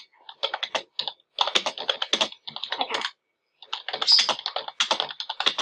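Computer keyboard being typed on in quick runs of keystrokes, with a short pause about three seconds in.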